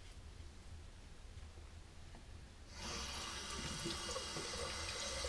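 Bathroom tap turned on about three seconds in, water running steadily into the sink as a safety razor is rinsed under it.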